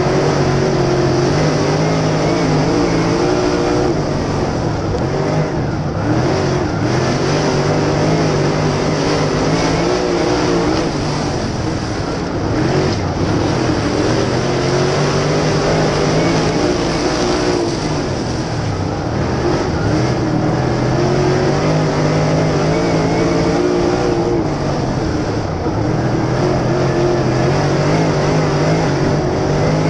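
Steel block dirt late model's V8 racing engine at race pace, heard on board: it winds up along each straight and drops in pitch through each turn, about every six seconds, lap after lap.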